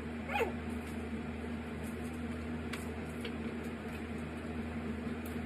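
Steady low mechanical hum, with a child's short high squeal falling in pitch about half a second in and a few faint clicks later on.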